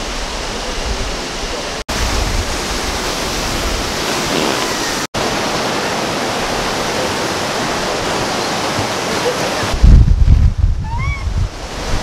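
Steady rushing of a rocky mountain stream, broken by two brief dropouts. Near the end, wind buffets the microphone with a heavy rumble, and two short rising calls are heard.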